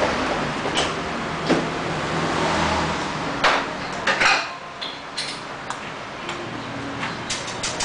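Scattered metallic clicks, clinks and knocks of hand tools and parts being handled while motorcycle mirrors are fitted to the handlebar controls. A steady noise runs under the first half and drops away about four seconds in.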